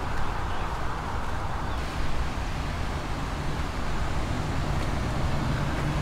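Steady outdoor rush of flowing stream water mixed with road traffic, an even noise with no distinct events.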